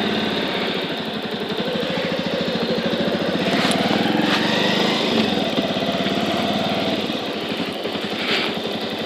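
Bajaj Avenger 160 Street's single-cylinder engine running as the motorcycle pulls away, with its note rising about two seconds in.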